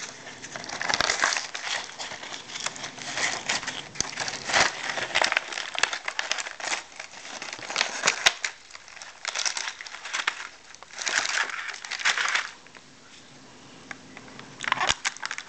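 Hot Wheels 5-pack packaging being crinkled and torn open by hand, in irregular rustling bursts with sharp clicks. It goes quiet for a couple of seconds, then a short burst comes near the end.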